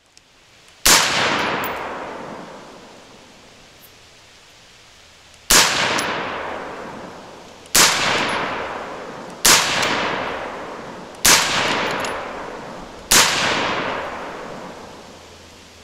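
AR-15 rifle with a 16-inch mid-length gas barrel and flash suppressor fired six times: one shot, then after a pause of about four and a half seconds five more roughly two seconds apart. Each sharp report is followed by an echo that fades over about two seconds.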